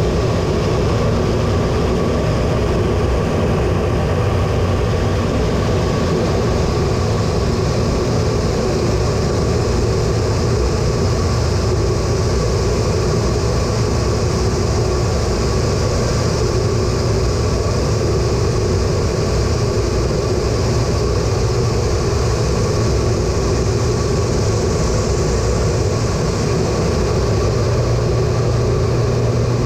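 Steady in-cockpit noise of an A-10 Thunderbolt II in flight: its twin General Electric TF34 turbofan engines and the rush of air, heard as a loud, even drone with a constant hum.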